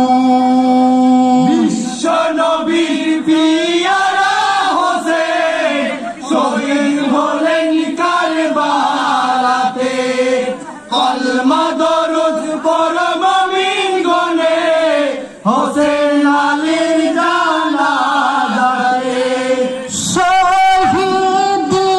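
A young male voice chanting a marsiya (elegy) through a microphone and PA: a long held note, then melodic lines with short breaks for breath between them.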